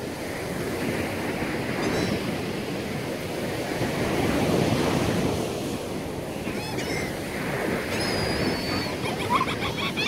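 Surf washing onto the beach in slow swells, with wind buffeting the microphone.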